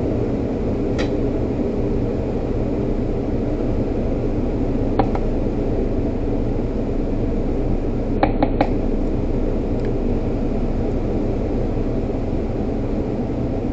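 Steady low mechanical hum, with a few light taps of a silicone spatula against a stainless-steel blender cup: one about a second in, one about five seconds in, and three quick ones about eight seconds in.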